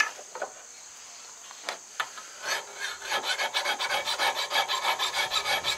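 Hand file scraping across the edge of a steel tomahawk head held in a bench vise. A few light clicks come first, then from about halfway in a steady run of quick filing strokes, about four a second, working a convex edge before heat treating.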